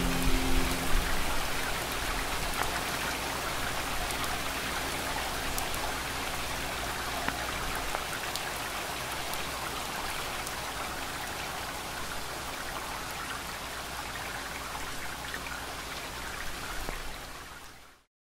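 Steady rain falling, with a held music note dying away in the first second. The rain cuts off suddenly near the end.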